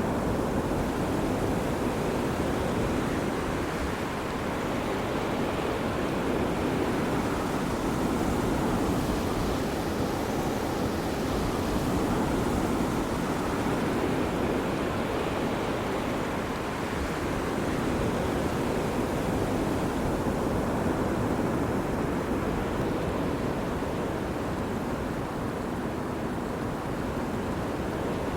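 Ocean surf washing onto a beach: a continuous rush of breaking waves that swells and eases gently every few seconds.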